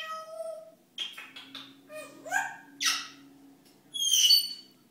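African grey parrot gibbering to himself: a run of short squeaks, clicks and gliding chirps, then a loud whistle about four seconds in.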